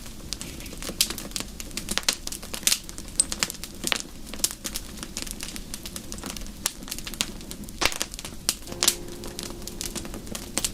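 Wood fire crackling in a fireplace: irregular sharp pops and snaps over a low steady hiss. A faint steady tone comes in near the end.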